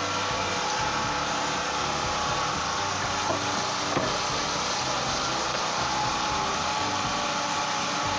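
Fish and sliced onions frying in an aluminium pot: a steady sizzle, with a couple of light clicks of the metal spoon against the pot about three and four seconds in.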